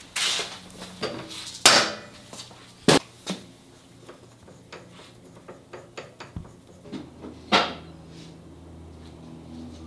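Metal tools and parts being handled at a milling machine: a few sharp metallic clanks with lighter clicks between. A low steady hum comes in near the end.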